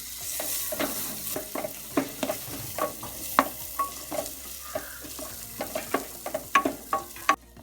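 Onions frying in hot oil in a pan, sizzling while being stirred. The spoon scrapes and taps against the pan several times a second. The sizzle cuts off suddenly shortly before the end.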